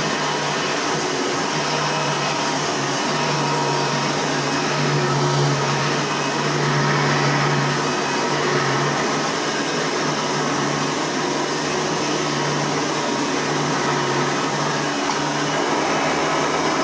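Hoover Tempo upright vacuum cleaner running steadily, its motor giving an even hum with a rushing airflow hiss.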